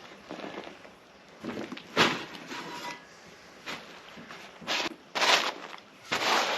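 Several short, irregular scraping crunches of soil being dug and tipped out of a potato grow bag.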